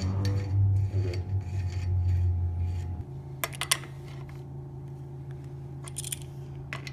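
A few small metallic clicks and clinks of the front axle nuts and washers being fitted onto a BMX front hub axle, over a steady low hum that gets quieter about three seconds in.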